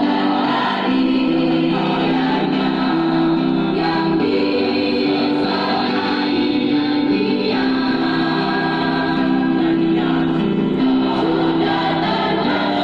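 Junior high school choir singing in parts, holding long notes that move from chord to chord.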